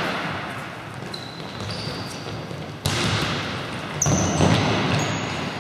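Futsal ball being kicked and struck on a sports hall floor: two sharp thuds about halfway through and again a second later, echoing in the hall, with short high-pitched shoe squeaks on the court in between.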